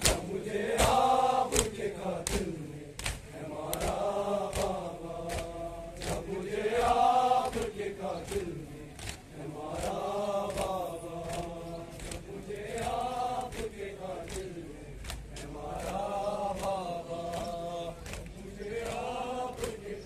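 A group of men chanting a Muharram mourning lament in call-like phrases that rise and fall, one about every three seconds, with sharp slaps of hands beating on chests (matam) through the chant.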